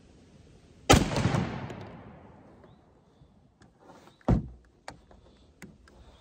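A single shot from a 12-gauge Remington 870 pump shotgun with a 3.5-inch Federal Grand Slam #5 turkey load. The report dies away over about a second and a half. About three seconds later the pump action is worked with a sharp metallic clack, followed by a couple of light clicks.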